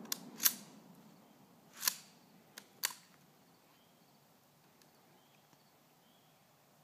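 Mosin-Nagant M44 bolt-action carbine being worked between shots: five sharp metallic clicks and clacks within about three seconds as the bolt is cycled, over the fading echo of the shot just fired.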